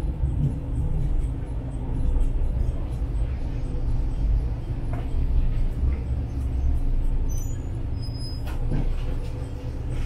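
Diesel railcar heard from inside the cabin, its engine and running gear rumbling low and steadily as it rolls slowly into the station. Brief high squeaks near the end, with one clunk just before it ends.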